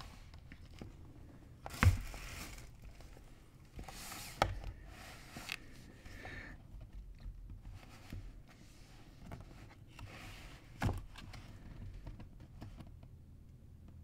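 Book pages being turned and handled, papery rustles with three sharp knocks, the loudest about two seconds in.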